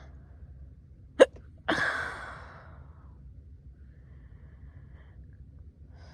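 A drunk person hiccuping: one sharp, loud hiccup about a second in, followed at once by a longer breathy vocal sound that fades over about a second.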